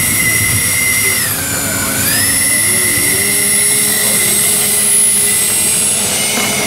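Twin 70 mm electric ducted fans of a radio-controlled Boeing 737 MAX model running on the ground with a steady high whine while it taxis. The pitch sags about a second and a half in and climbs back up half a second later as the throttle is eased and reopened.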